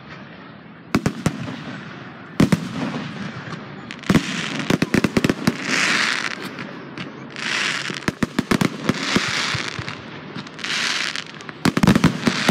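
Fireworks display: aerial shells bursting with sharp bangs, a quick run of reports about four seconds in, and several second-long bouts of hissing crackle. A dense cluster of bangs comes near the end.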